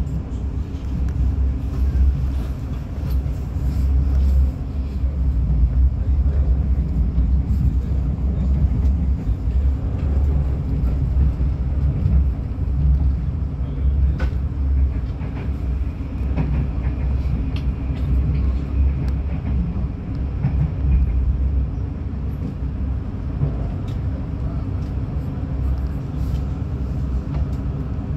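Steady low rumble of a passenger train running at speed, heard from inside the carriage, with a few faint clicks over it.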